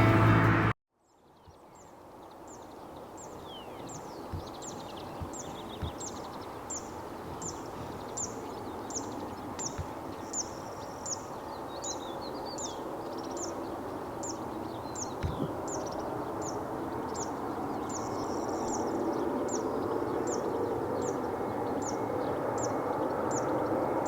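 A steady jet rumble from an Airbus A321neo on approach, growing slowly louder. Over it a bird repeats a short high chirp about once or twice a second, with a few other bird calls.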